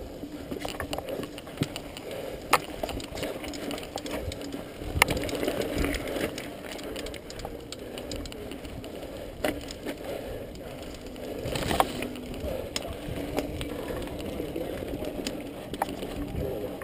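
Mountain bike rolling over a bumpy dirt trail: a continuous rattle from the bike with a ratcheting freehub buzz while coasting, and sharp knocks every few seconds as the wheels hit bumps.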